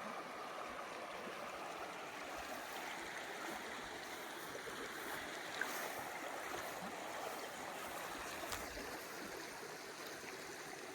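A creek running steadily, an even wash of flowing water.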